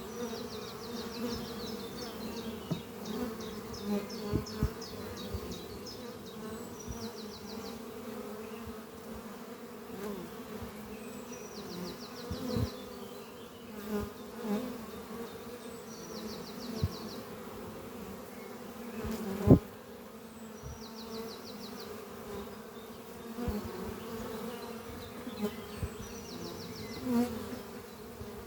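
Many honeybees flying at a hive entrance, a steady buzz of wings, with single bees now and then buzzing loudly as they pass close; the loudest pass comes about two-thirds of the way through. Short, rapid high trills recur every few seconds over the buzz.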